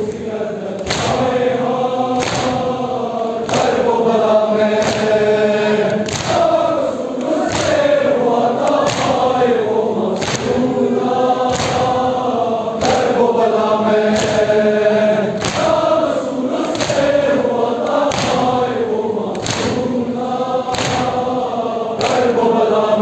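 A large crowd of men chanting a Muharram lament (noha) together, with loud rhythmic chest-beating (matam) slaps landing together about once a second.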